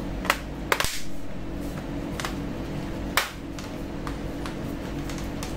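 Plastic bottom case of an Asus A407M laptop being pressed shut by hand, its clips snapping into place with several sharp clicks.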